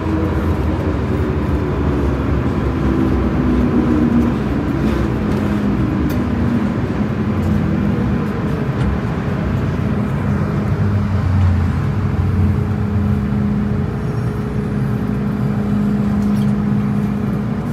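MTR M-train electric multiple unit, heard from inside the car: a steady electrical hum and running rumble, with the train's motor tones shifting in pitch for the first several seconds.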